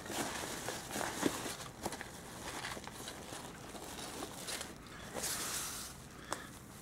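Rustling and crinkling of a padded paper mailer and Styrofoam packing peanuts as hands dig through the package, with scattered light clicks and one louder rustle about five seconds in.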